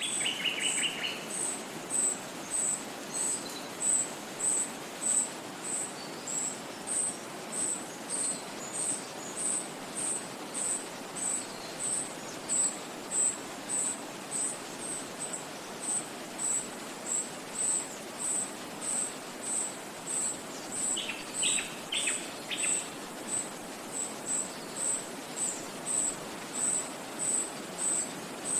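Forest ambience: a steady rushing background, with a high, thin chirp repeating evenly about every half second throughout. Brief bird trills come in at the very start and again about twenty seconds in.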